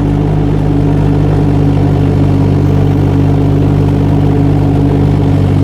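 Kubota D902 three-cylinder diesel engine of a JoyT5 JT5200 2-ton mini excavator running steadily.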